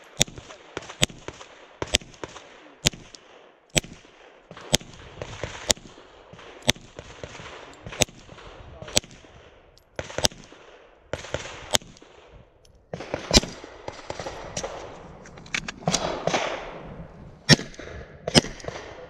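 Pistol with a slide-mounted red-dot sight fired in a long string of single shots, about twenty in all, roughly one every half second to a second, with a few short pauses.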